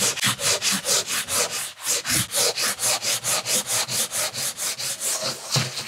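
Fine 240-grit sandpaper on a cork hand block rubbed quickly back and forth over cured polyester filler putty on a tabletop, in even scratchy strokes about five a second, sanding the dried filler back smooth.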